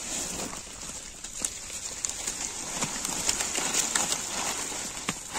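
Live murrel (snakehead) fish wriggling and slapping against one another and on crushed ice: a dense crackling patter of small clicks and knocks, with a netting basket of fish being lifted out of the pile.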